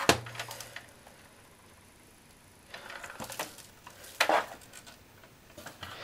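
Hands handling a computer power supply and its cables over an open PC case: a sharp click right at the start, a knock about four seconds in, and light clatter and rustling between.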